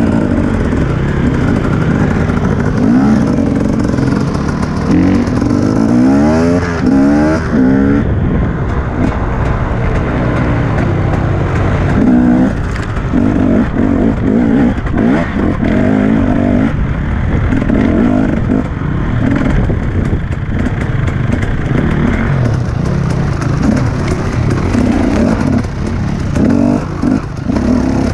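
Enduro dirt bike engine heard close up from on the bike, revving up and down without a break, with a run of quick rising revs about six seconds in.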